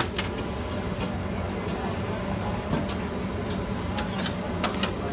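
Metal spatula and plate scraping and clinking against a large flat metal griddle as pieces of meat are turned and scooped up. A sharp clink opens it, another comes near the middle, and several quick clinks come in the last second, over a steady background noise.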